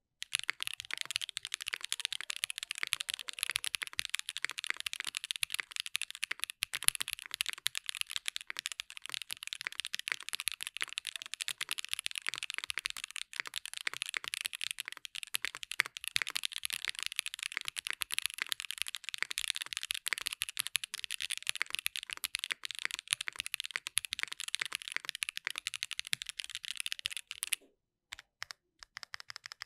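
Fast continuous typing on a Vega mechanical keyboard with stock SWK Neon switches, a polycarbonate plate, no foam and GMK keycaps: a dense stream of key clacks. The typing stops about 27 seconds in, followed by a few separate key presses near the end.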